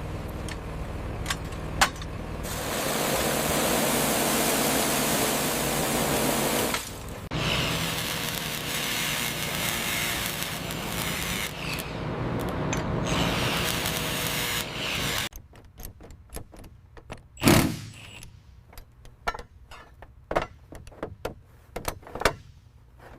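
Remote-controlled excavator's small motors and gears whirring steadily in two long stretches, then a run of scattered clicks and knocks over the last several seconds.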